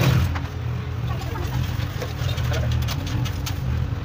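Honda CG 125's air-cooled single-cylinder four-stroke engine, freshly rebuilt, idling steadily, settling from a short throttle blip at the start.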